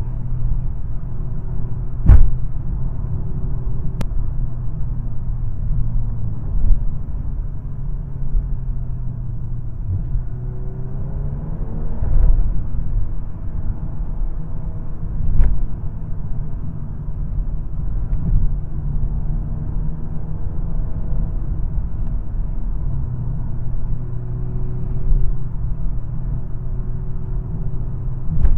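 2022 VW Golf R's turbocharged four-cylinder engine and road rumble while driving, the engine note rising and falling with acceleration. A few sharp knocks stand out, the loudest about two seconds in and again near the middle.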